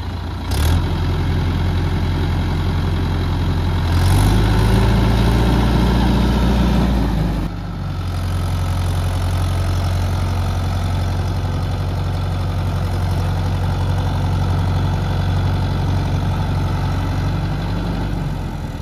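Mahindra tractor's diesel engine running steadily, revved up harder from about four seconds in for some three seconds, its pitch rising a little, then dropping back to a steady run.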